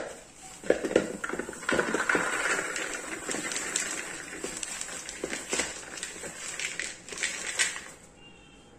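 Popped popcorn pouring from a plastic colander into a plastic bowl: a dry, rustling tumble with scattered light taps. It starts about half a second in, is heaviest near the start and thins out before the end.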